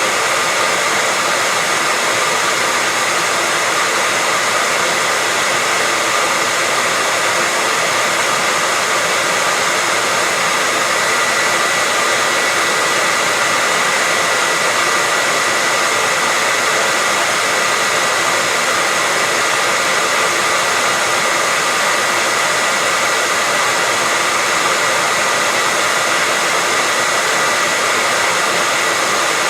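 Hair dryer running steadily: a continuous rush of blown air with a faint steady whine, unchanging throughout.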